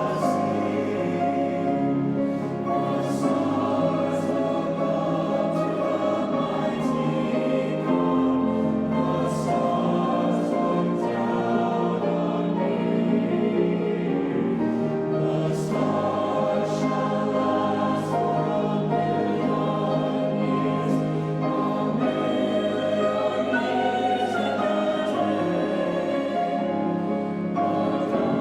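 Youth choir singing in several parts, with held notes and sung consonants.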